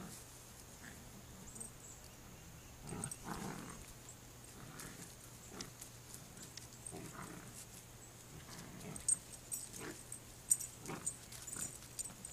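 Two puppies play-fighting over a tug toy, with short growls and grunts coming every second or so. Toward the end there are sharper rustles and crackles as they scuffle into leafy shrubbery.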